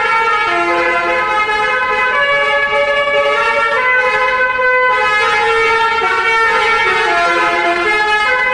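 Indonesian 'telolet' musical bus horn playing a tune: several horn tones sounding together, stepping from note to note every half second to a second without a break.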